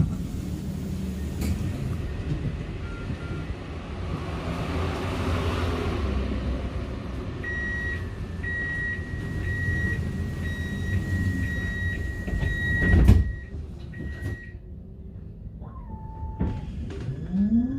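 Tram interior: a steady low rumble, a string of short high beeps lasting several seconds, then a loud clunk. Near the end the electric motor's whine rises in pitch as the tram gathers speed.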